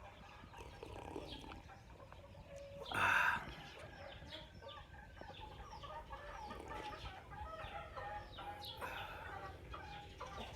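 A flock of chickens clucking, many short calls overlapping, with one louder call about three seconds in.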